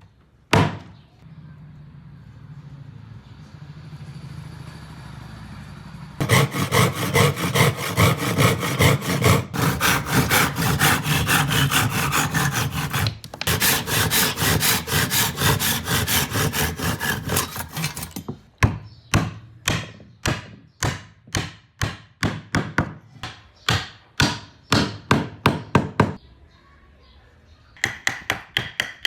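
Hammering on wood: a long fast run of hard knocks, then slower single blows about two or three a second. A few blows near the end ring with a metallic tone. A steady low hum fills the first few seconds.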